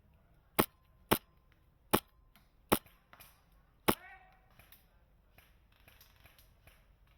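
Wolverine MTW HPA airsoft M4 fired in single shots, five sharp cracks over about three and a half seconds at uneven spacing. A short voice-like sound follows the last shot, then fainter scattered clicks.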